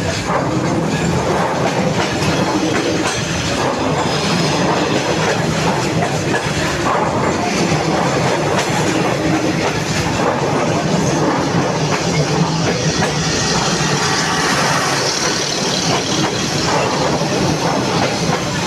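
Train passing close by: a steady, loud rumble and clatter of wheels running on the rails.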